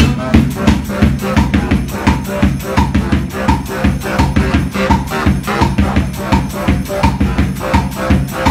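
Live brass-and-drum busking: a baritone saxophone plays a low, repeating riff over a fast, even beat on a bass drum and snare.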